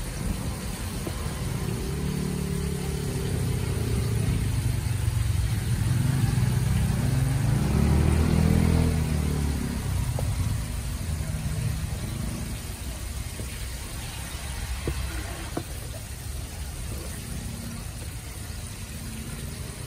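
A motor vehicle's engine passes close by, growing louder to a peak about eight seconds in, its pitch bending as it goes by, then fading away. A few light taps from a spoon in a plastic tub of breading flour come later.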